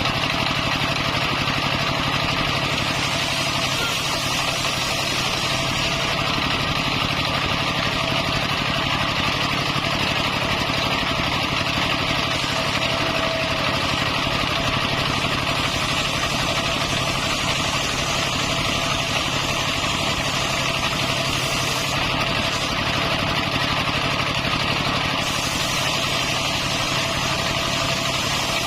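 Engine-driven circular saw rig running steadily at a constant note, with no change in load.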